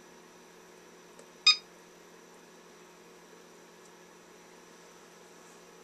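A Cellpro PowerLab 8 battery charger gives one short electronic beep about a second and a half in as its front-panel button is pressed to scroll to the next screen. A faint steady hum runs underneath.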